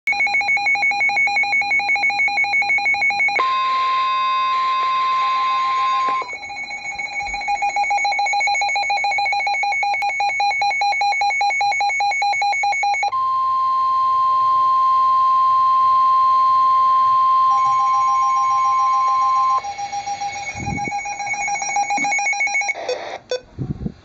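NOAA weather alert radio going off for an emergency warning: a loud, rapid electronic beeping alarm, twice joined by the steady long weather alert tone, about 3 s and then about 6 s. The beeping fades out near the end, followed by a few handling bumps.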